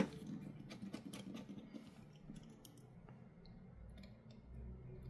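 Faint clicks and taps from handling a just-repaired smartphone on the bench, with one sharp click at the start and light scattered ticks after it, over a low hum that rises near the end.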